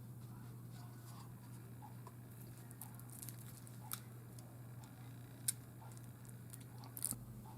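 Faint handling of a new tarot deck and its cardboard packaging: soft rustles with a few light clicks and taps, the sharpest about four, five and a half and seven seconds in, over a steady low hum.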